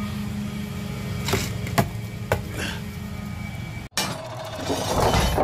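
Truck-mounted carpet-cleaning unit's engine running with a steady low drone, with three sharp footsteps on a concrete walkway between about one and a half and two and a half seconds in. The sound drops out briefly near four seconds, then returns with a rougher rustling noise.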